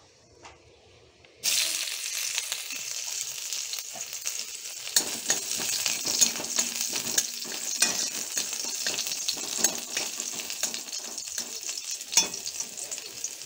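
Chopped onion sizzling in hot oil in a metal kadai, the sizzle starting suddenly about a second and a half in as the onion goes into the oil. From about five seconds in a spatula stirs it, with frequent light scrapes and taps against the pan.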